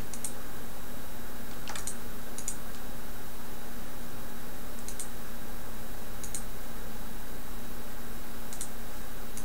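Computer mouse clicking: about seven short, sharp clicks spaced a second or two apart, over a steady low hum and hiss.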